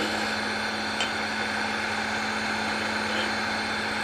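Wood lathe running steadily with a small ornament blank spinning in the chuck, a constant motor hum, and one short click about a second in.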